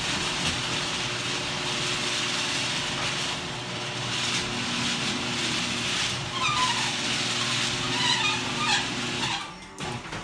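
Garage door opener running the overhead door, a steady motor hum with clatter, and squeaking from the door's rollers in the second half. It stops shortly before the end.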